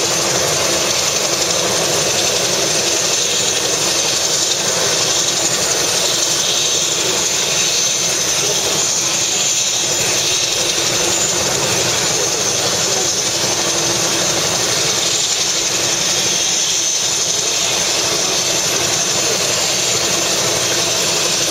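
Single-engine turbine helicopter idling on the pad with its rotor turning: a steady turbine whine and hiss over the rotor's rush, holding level throughout.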